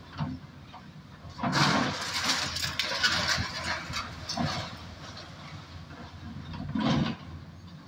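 Demolition machinery working at a distance: a steady low rumble with clanking, clattering bursts, the loudest lasting about two seconds from a second and a half in and a shorter one near the end.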